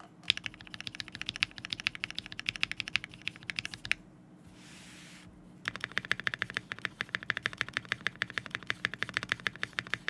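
Typing on a Rama Zenith mechanical keyboard with an FR4 half plate, Black Cherry Pie switches on 60 g slow springs, and GMK Hammerhead keycaps: rapid runs of keystrokes. About four seconds in, the typing stops for roughly a second and a half with a brief soft rustle, then resumes, fast and continuous.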